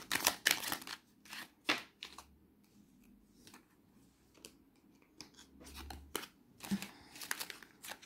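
A deck of oracle cards shuffled by hand: a quick run of crisp snapping clicks in the first couple of seconds. Then cards are dealt out and laid down on the table, with scattered soft slaps and sliding sounds.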